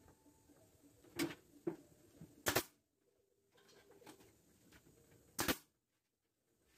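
Pneumatic nail gun firing twice into a wooden frame, two sharp shots about three seconds apart. Two lighter knocks of wood being handled come just before the first shot.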